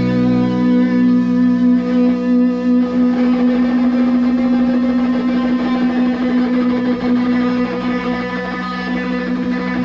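Electric guitar chord left ringing through the amplifier, one steady held drone with no drums, easing off slightly near the end.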